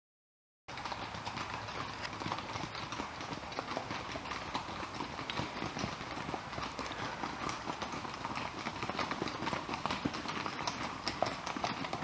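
Hooves of a group of Icelandic horses clip-clopping at a walk on a wet paved lane, a dense overlapping patter of hoof strikes that grows a little louder as the horses come closer. It starts abruptly just under a second in.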